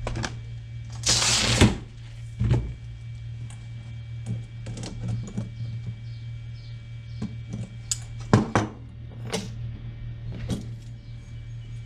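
Hand-work clicks and knocks as a hook is bent down by hand, with a short hissy scrape about a second in. A steady low hum runs underneath.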